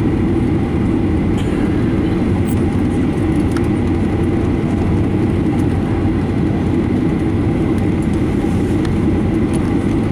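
Steady cabin noise of a Boeing 737-900ER: its CFM56-7B engines and the airframe make an even, heavy rumble with a thin high whine over it.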